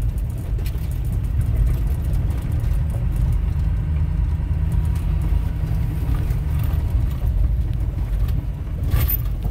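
A vehicle driving along a rough dirt track, heard from inside the cab: a steady low rumble of engine and tyres, with scattered light knocks and rattles.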